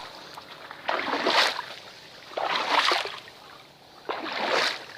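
Water sloshing and splashing in three surges about a second and a half apart.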